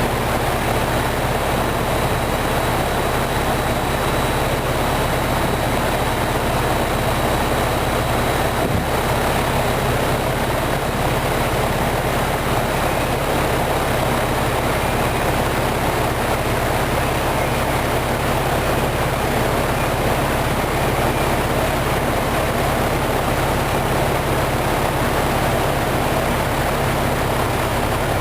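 UPG (Coleman Evcon) heat pump running steadily in heat mode: compressor hum under the rush of its fan.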